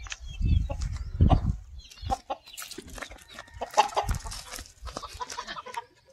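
Aseel rooster clucking while held by hand, with a few low thumps in the first second and a half.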